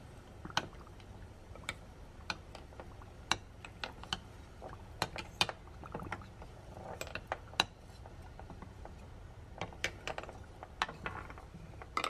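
Small glass bottles clinking and knocking against each other and the steel saucepan as they boil in water and are pushed about with a wooden spoon: irregular sharp ticks, a dozen or more, some close together.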